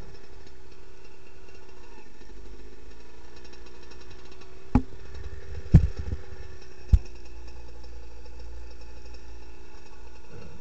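Dirt bike engine idling steadily while the bike stands still. Three sharp knocks come in the middle, about a second apart.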